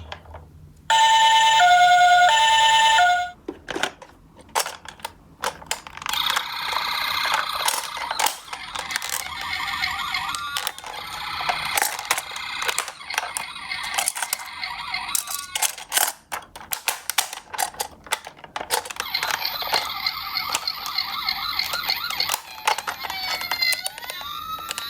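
Japanese ambulance two-tone 'pi-po' siren, a high and a low note alternating, loud for about two seconds near the start. From about six seconds in several sirens overlap, mixed with a fast clatter of clicks from die-cast toy cars rolling down a slope, and wailing sirens that rise and fall come in near the end.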